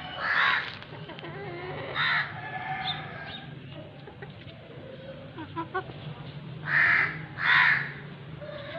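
Harsh bird calls: four short, loud squawks or caws, with two close together near the end and fainter calls between them, over a steady low hum.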